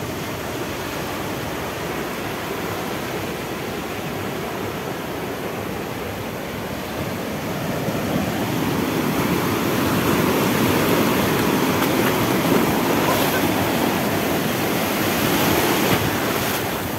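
Ocean surf: a steady rush of waves that swells louder from about eight seconds in and eases off near the end.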